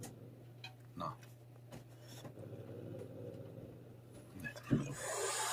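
A cat chewing food from a stainless steel bowl, with a few small sharp clicks over a steady low hum. A louder rustling noise comes near the end.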